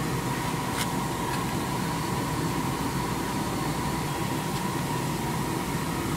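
Metal lathe running steadily with coolant flowing while a roughing reamer cuts a rifle chamber, a steady whine over a noisy hiss, with a faint click about a second in and another later.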